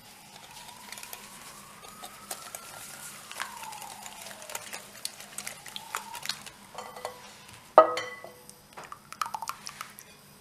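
Wire whisk beating eggs and sugar in a glass bowl: quick, irregular clicks and scrapes of the metal wires against the glass. About eight seconds in the whisk strikes the bowl with a sharp clink that rings briefly.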